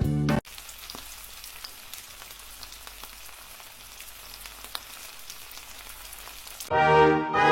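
Music cuts off, then a steady crackling hiss with scattered small clicks continues until music comes back in near the end.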